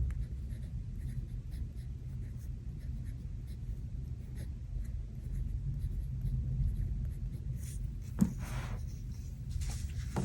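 Light scratching and tapping of stickers being handled and pressed onto planner paper, with a sharp click about eight seconds in followed by a short rustle. A steady low rumble of thunderstorm ambience runs underneath.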